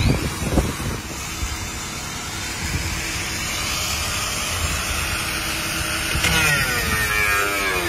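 Corded electric angle grinder running with a steady high whine that builds after the first second or two, its pitch wavering near the end. A couple of knocks sound right at the start.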